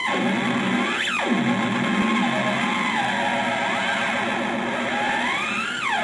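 Echo Theremin played through an amplifier, one wavering tone sliding up and down in pitch: a quick swoop up and back down about a second in, a wobbling stretch in the middle, then a long rise that drops away sharply near the end.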